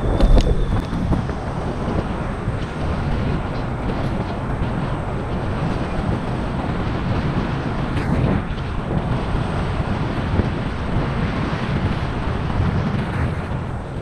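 Steady wind buffeting on the helmet-mounted camera's microphone while a Xiaomi Mijia Pro electric scooter rolls along a paved path, with low tyre and road rumble. A few knocks right at the start as the scooter rolls over a kerb ramp, and a single knock about eight seconds in.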